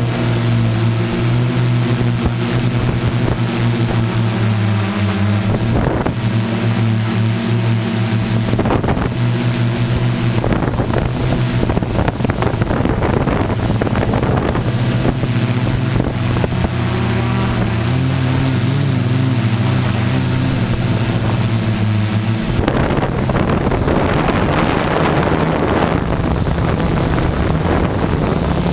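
Multirotor drone propellers humming steadily, with wind noise on the microphone. About 22 seconds in, the low hum gives way to louder wind rush, and a higher hum comes in near the end.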